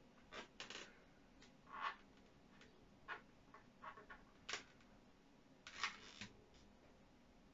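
Faint, scattered short scratches and squeaks of a marker pen drawing on a latex modelling balloon, along with the small sounds of fingers handling the balloon. The strokes come irregularly, every second or so, and the clearest are about four and a half and six seconds in.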